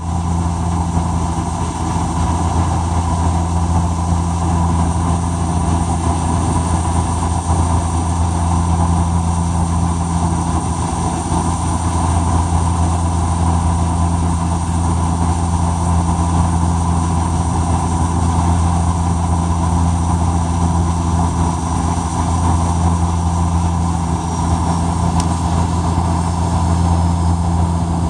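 Steady drone of an airliner's engines and rushing airflow heard inside the passenger cabin during the approach, with a strong, even low hum beneath it.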